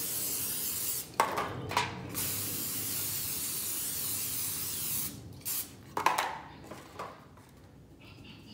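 Aerosol cooking spray hissing in two long sprays as foil baking pans are greased, with a few light knocks of the foil pans being handled between and after the sprays.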